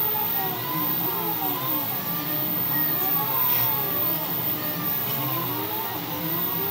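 Delta 3D printer running a print: its stepper motors, on DRV8825 drivers at 1/32 microstepping, whine in tones that glide up and down in pitch as the arms move, over the steady rush of the cooling fans.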